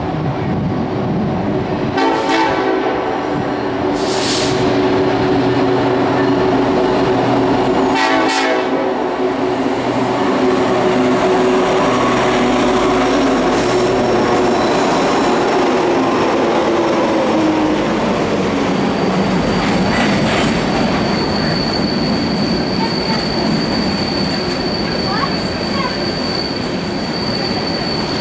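Loaded coal train passing: the lead BNSF diesel locomotive approaches with a steady pitched drone that sags in pitch as it goes by. Then the loaded coal hoppers roll past with a steady clatter of wheels on rail, and a high, steady wheel squeal joins in for the last several seconds.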